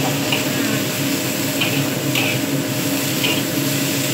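Metal spatula stirring and scraping bamboo shoots in a wok as they stir-fry, a short scrape about once a second over a steady frying sizzle and a low hum.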